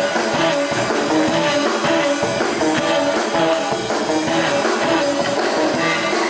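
Live rock band playing an instrumental passage: electric guitar over a steady drum-kit beat.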